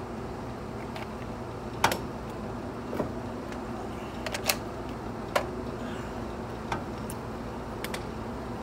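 Several separate sharp clicks and light knocks at irregular intervals over a steady low hum, the loudest about two seconds in; no impact wrench is running.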